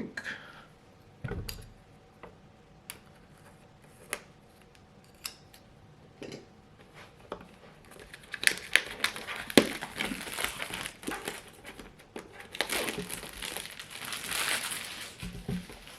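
Plastic shrink wrap being cut and pulled off a boxed machine: a few scattered clicks and taps, then two long spells of loud crinkling as the plastic is torn away and crumpled, starting about halfway through.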